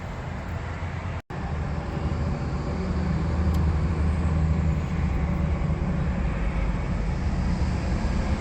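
Steady low rumble of an idling truck engine, broken by a brief dropout a little over a second in.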